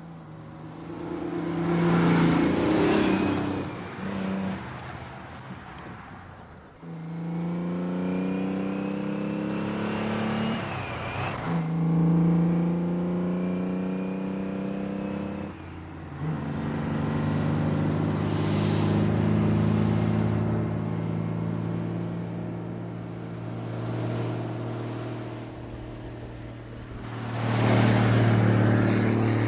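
Heavy truck's engine pulling through the gears: the pitch climbs, drops back at shifts about seven, eleven and fifteen seconds in, then holds steady. A loud rushing swell comes near the start and again near the end, like traffic passing close by.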